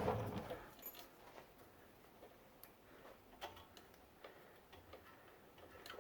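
Faint, scattered light clicks and ticks of the front brake caliper's parts being wiggled loose by hand to pull the retaining pin and pad out.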